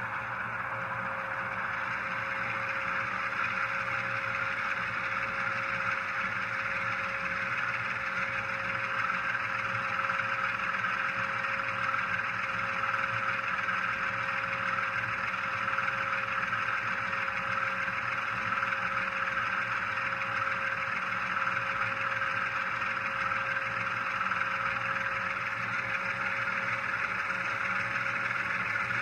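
Digital diesel engine sound of an HO scale ES44AH (GE Evolution-series) model, played by its LokSound decoder through a small onboard speaker. It runs steadily, with a constant hum and a slow rise in loudness over the first ten seconds or so.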